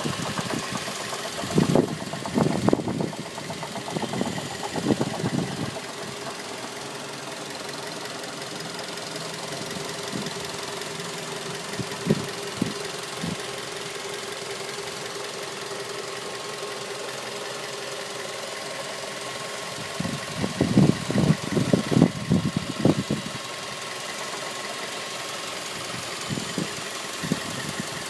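2006 Mazda3 engine running with an abnormal knock. Over a steady hum, loud knocks come in irregular bouts: several in the first few seconds, a couple near the middle, a dense run for about three seconds two-thirds of the way through, and a few more near the end.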